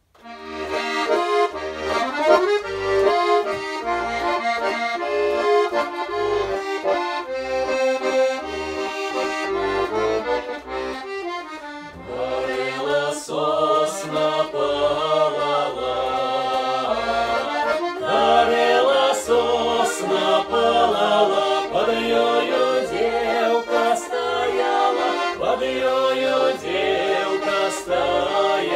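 Button accordion playing the opening of a Belarusian folk song, with a regular low bass beat under the melody. About twelve seconds in, a small group of men's and women's voices joins, singing along with the accordion.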